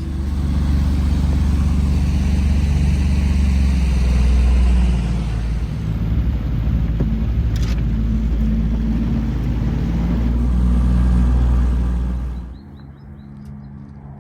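Small outboard motor pushing a john boat under way, running steadily with a heavy low rumble. About twelve and a half seconds in it drops off sharply, as if throttled back.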